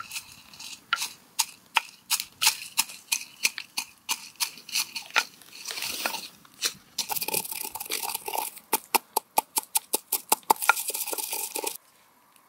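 Wooden pestle pounding and grinding dried red peppers in a wooden mortar: a run of sharp knocks with the crunch of the brittle pepper being crushed. The strikes come faster in the second half, then stop suddenly near the end.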